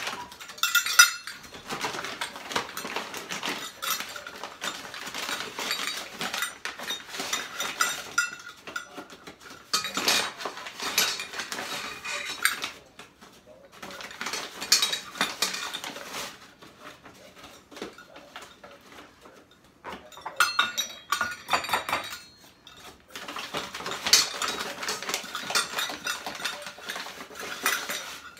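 Metal measuring cups clinking and scraping as flour is scooped from a bag and measured out, in busy bursts of clatter with short pauses between them.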